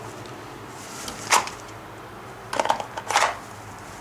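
Clothing and handling noise: three brief rustles or scuffs, about a second and a half in and twice near three seconds, as hands pull a sweatshirt down over a holstered pistol at the hip.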